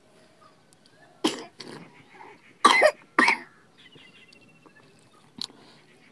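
A person coughing: two short coughs about a second in, then two louder coughs close together around the middle, and a brief sharp click near the end.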